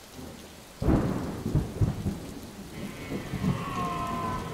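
Thunder cracks about a second in, then rolls on as a low rumble with several further peaks, over the steady hiss of rain.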